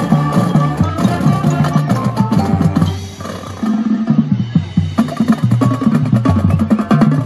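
High school marching band playing outdoors: full band with brass, woodwinds and drums for about three seconds, then a brief dip, and from about four seconds in the drumline plays alone, with rapid snare and tenor-drum strokes over bass drums.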